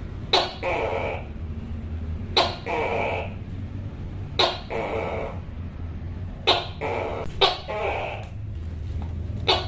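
Tokay gecko calling its loud two-syllable "to-kay" call over and over: a sharp clipped first note, then a longer drawn-out second note, repeated about every two seconds.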